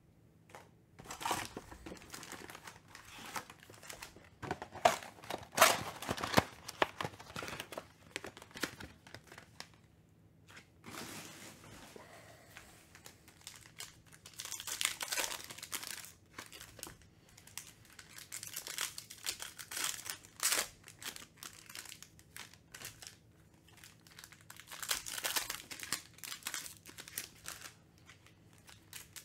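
Foil trading-card packs and their wrapping crinkling and being torn open by hand, in several bouts of sharp crackling with short lulls between them.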